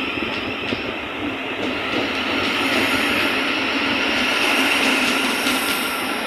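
Thameslink Class 700 electric multiple unit running past as it departs the platform, a steady train noise with a few clicks from the wheels over rail joints near the end.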